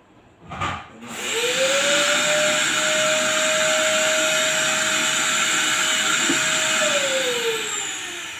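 A small electric motor switched on with a click, spinning up to a steady whine with a hissing rush of air, held for about six seconds, then switched off and winding down with a falling whine.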